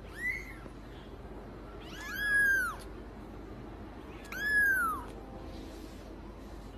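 A young kitten meowing three times: a short mew near the start, then two longer ones about two seconds apart, each rising and then falling in pitch.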